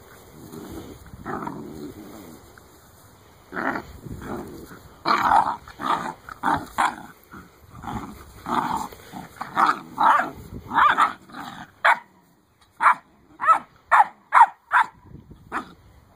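Eight-week-old Great Dane puppies play-fighting, growling and barking at each other in a quick string of short calls. Near the end comes a run of about five sharp barks in quick succession.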